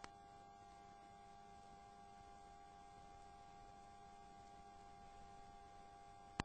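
Near silence: a faint steady hum with a light hiss, broken by a short click just after the start and a louder sharp click near the end.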